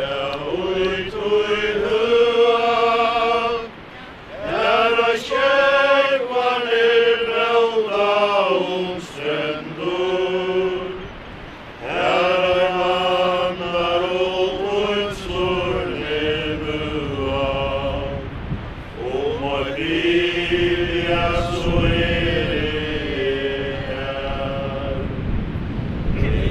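A group of mourners singing a slow hymn together without accompaniment, in long held notes that step from one pitch to the next, with short breaks between lines.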